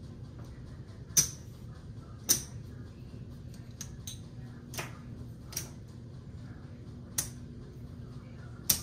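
Casino chips clicking as they are set down and stacked on a craps table, about six sharp single clicks a second or so apart, over a low steady hum.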